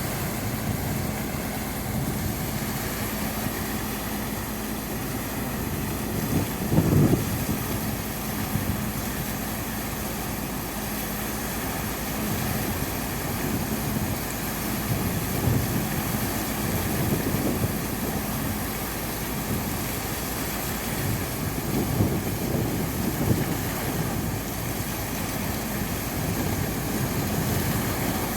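Sand pump engine running steadily, with a steady hum that drops out about two-thirds of the way through and a few louder low surges, the loudest about seven seconds in.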